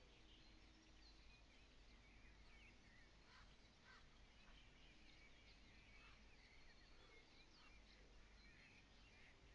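Near silence with faint songbird chirping: many short chirps and small whistled glides over a low steady hum.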